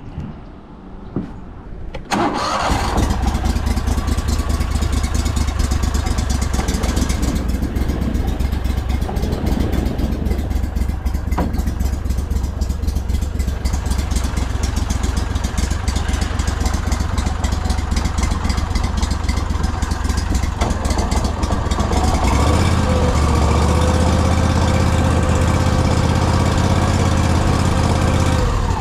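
Go-Devil surface-drive mud motor's air-cooled EFI engine starting about two seconds in, then running steadily as the boat moves off. It runs a little harder for the last several seconds.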